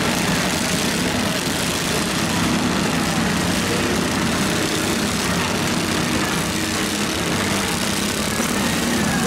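Many garden tractor and riding lawn mower engines running together, a steady mixed engine drone with no single impact standing out.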